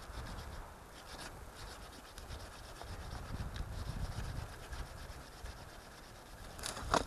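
Bahco Laplander folding saw with a 190 mm blade cutting through a log, a steady rasping of saw strokes in wood, with one louder, sharper stroke near the end.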